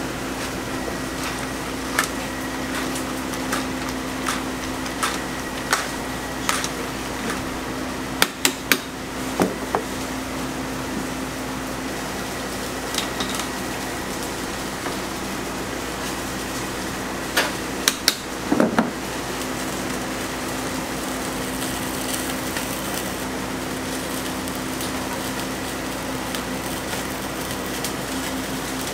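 Steady kitchen hum from a steaming noodle boiler and burners, broken by sharp knocks and clatter of utensils on metal pots and bowls, in clusters about eight and eighteen seconds in.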